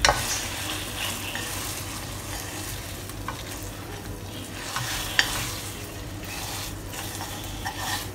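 Glutinous rice dough frying with a low steady sizzle in shallot oil in a non-stick wok as it is stirred and folded with wooden chopsticks, with a few light clicks of the chopsticks against the pan.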